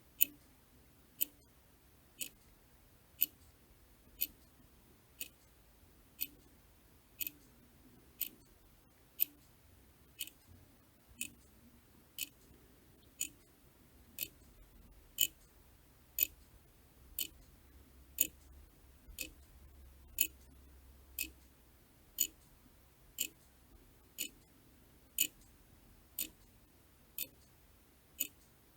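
A clock ticking steadily, one sharp tick about every second.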